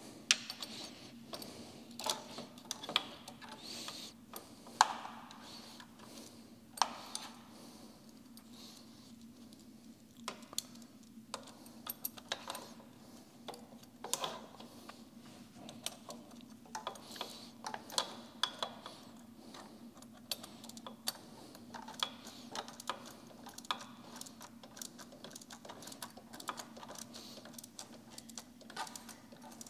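Small hand ratchet clicking in quick, irregular runs as a bolt is turned by hand, with occasional sharper knocks of tool on metal. A steady low hum sits underneath.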